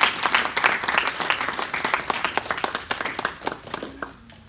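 Small audience applauding, the clapping thinning out and stopping about four seconds in.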